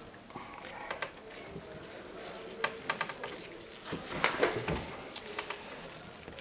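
Gloved hands working a rubber dust seal down onto a scooter fork leg: scattered light clicks and rubbing, with a busier cluster of knocks about four seconds in.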